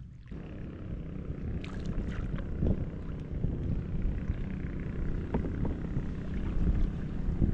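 Kayak on the water: water sloshing and splashing around the hull, over a steady low rumble of wind on the microphone.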